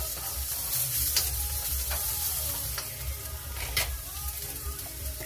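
Vegetables sizzling in a hot wok as a spatula stirs them, with a few sharp clicks against the pan, the loudest about four seconds in.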